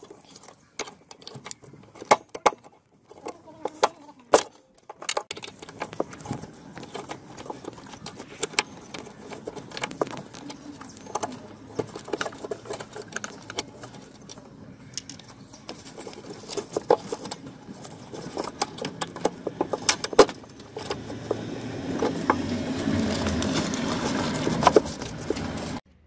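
A wrench clicking and clinking on metal as the wiper motor's mounting bolts are undone: scattered sharp clicks, some in quick runs. For the last few seconds a louder steady noise builds and then stops just before the end.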